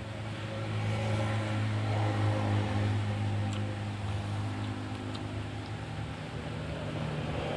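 A motor engine running steadily with a low hum, swelling a little over the first couple of seconds and then easing, with a few faint ticks on top.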